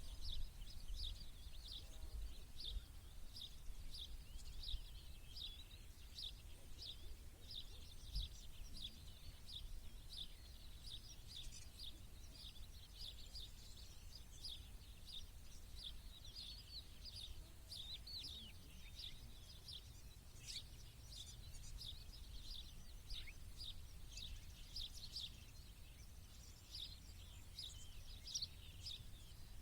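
Small birds chirping continuously in a dense run of short, quick chirps, over a steady low rumble.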